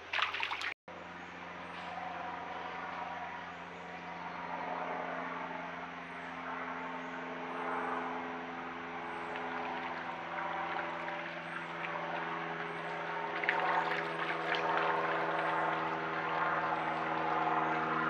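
A steady engine drone, a hum of several even tones that slowly grows louder, with deer splashing and stepping through shallow creek water about three-quarters of the way in. A brief burst of noise at the very start cuts off abruptly.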